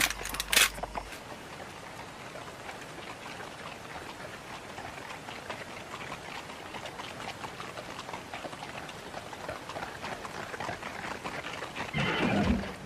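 Faint, even crackling background with two sharp clicks right at the start. Near the end a horse whinnies once, briefly and louder than anything else.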